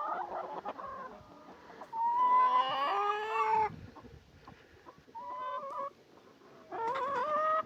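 Chickens calling: four separate drawn-out calls, the longest about two seconds in and lasting over a second.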